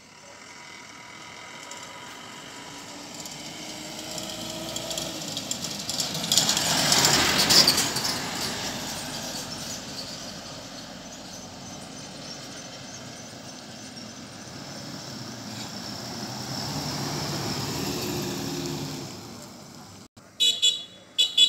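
Motor vehicles passing on the road. One swells to its loudest about seven seconds in and fades away, and a second engine grows louder later and drops off near the end. A few sharp knocks come right at the end.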